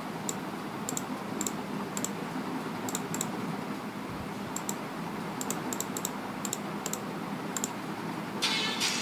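Light, irregular clicks of a computer mouse, some in quick pairs, over a steady hiss and low hum. Music comes in near the end.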